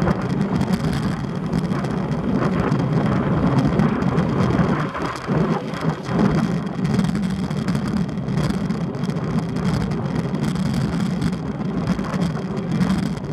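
Wind noise on a bike-mounted action camera's microphone, mixed with tyre and road noise from a road bike being ridden. It is a steady, uneven noise with no pitch.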